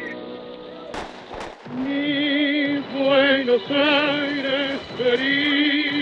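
A solo voice singing a tango in long held notes with heavy vibrato, over accompaniment. About a second in, two sharp bangs sound close together, just before the singing resumes.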